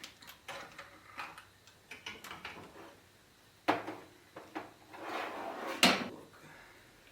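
Hand tools and metal parts being handled while working on a car: scattered clinks and knocks, a scrape about five seconds in, and two louder knocks, one near four seconds and one near six.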